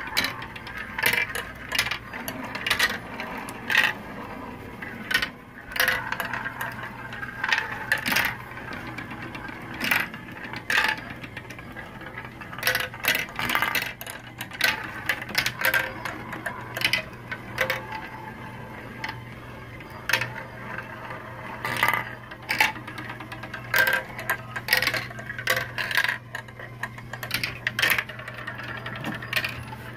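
Marbles rolling and clattering through plastic marble-run track, chutes and spiral funnels: many irregular sharp clicks and rattles as they hit and drop between pieces. A low steady hum runs underneath.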